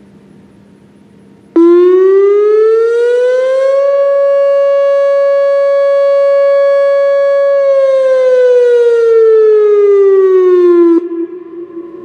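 Whelen WPS-2805 electronic siren sounding a short alert: one rich tone that starts suddenly about a second and a half in, rises in pitch over about two seconds, holds steady for about four seconds, then falls over about three seconds and cuts off, leaving a brief echo.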